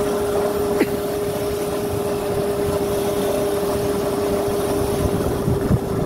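Electric motorbike powered by Makita tool batteries riding along at steady speed: its motor gives a constant whine over a low rumble of wind and road noise, with a single click about a second in.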